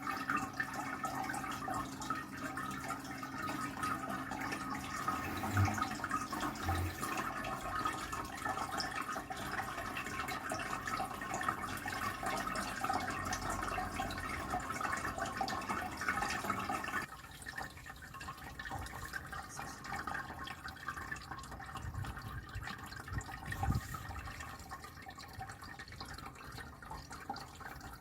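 Anko 3-litre pet water fountain running: water steadily trickling and dripping into its bowl. About two-thirds of the way through, the sound drops suddenly to a quieter trickle, and a soft low thump comes near the end.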